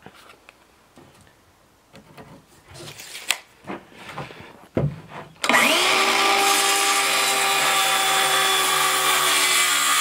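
A few light knocks and clicks of handling, then about halfway in a DeWalt DCS391 20-volt cordless circular saw starts with a short rising whine and runs steadily as it cuts across a rough-sawn board.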